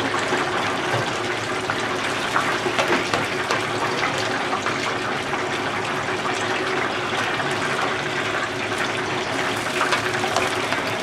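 Shrimp tempura and batter frying in a deep fryer of hot oil: a steady, dense sizzle full of fine crackles, with a faint steady hum underneath.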